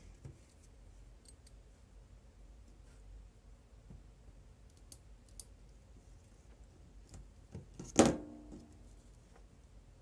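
Quiet handling of a small pocket knife and metal tweezers: a few faint clicks, then one sharp knock with a brief ring about eight seconds in.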